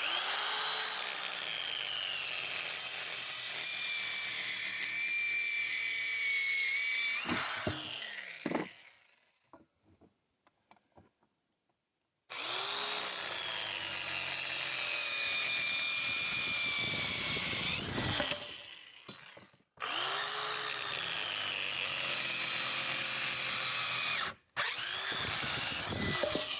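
Hychika CS85C mini circular saw running and cutting wood in four runs of a few seconds each, the last two only a moment apart. Each run starts abruptly, and each of the longer runs ends with the motor's whine falling as the blade spins down; a few light clicks fall in the pause after the first run.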